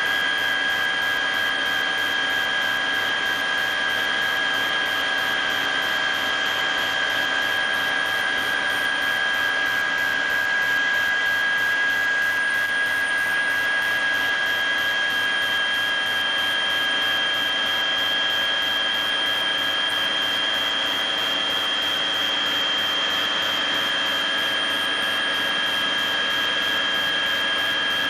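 Steady whine of an aircraft's turbine engines heard inside the cabin: high, unchanging tones over a constant rushing noise.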